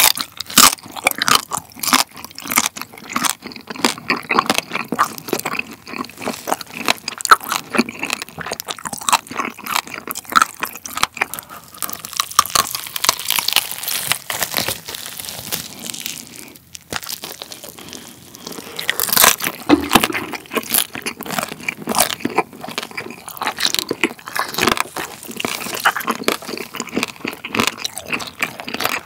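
Close-up crunching and chewing as the crackling skin of a roast pork hock (Schweinshaxe) is bitten off and chewed: many sharp crackles in quick succession, with a short lull a little past the middle. The skin was roasted long for crispness and has turned hard and tough.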